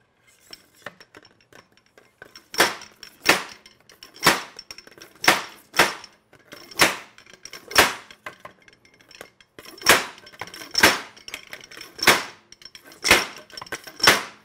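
Black PVC pipe slid over a Honda Shadow fork tube being slammed down again and again to drive the new fork oil seals into the lower fork leg. About a dozen sharp knocks with a metallic clink, roughly one a second, starting a couple of seconds in, with a short pause after the middle.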